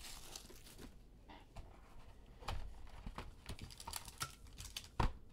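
Faint handling noise of a trading-card box being opened and its foil-wrapped pack pulled out: scattered light clicks, taps and rustles, with a sharper tap about five seconds in.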